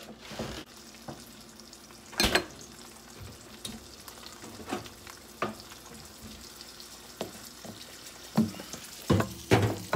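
Eggs frying in a pan: a steady sizzle broken by sharp pops and clicks, the loudest about two seconds in and a cluster near the end.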